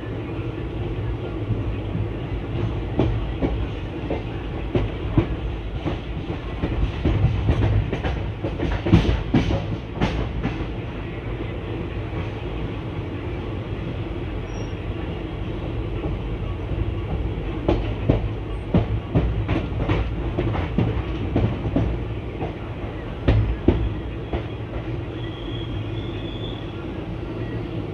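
ICF passenger coach rolling out of a station, heard from inside at an open window: a steady wheel rumble, with two runs of rapid clattering as the wheels cross rail joints and the yard's points, one about a third of the way in and a longer one past the halfway mark.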